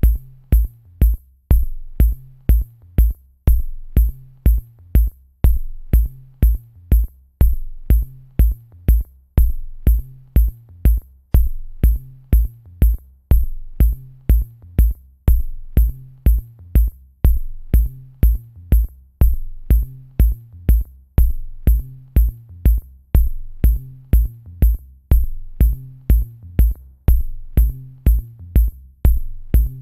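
Electronic background music with a steady drum-machine beat, about two beats a second, over a repeating bass line.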